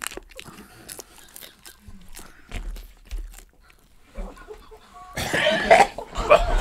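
Hard taco shells crunching as they are chewed, then from about five seconds in loud dry heaving and gagging, a gag reaction to the taste of congealed pork blood.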